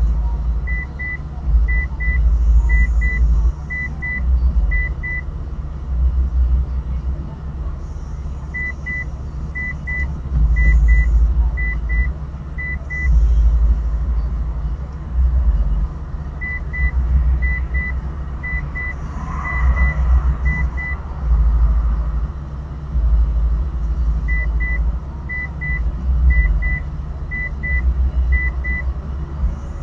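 Low, pulsing rumble in the cabin of a car idling at a stop. Four groups of short, high double beeps come at intervals, each group five or six pairs long.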